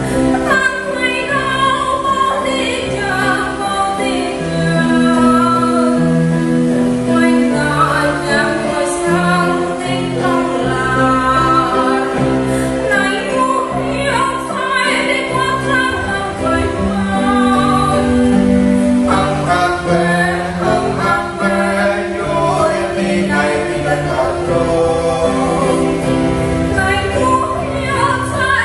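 A woman singing a Catholic hymn in the Êđê language, accompanied by an electronic keyboard. About halfway in, the song moves into its chorus and the accompaniment fills out in the low notes.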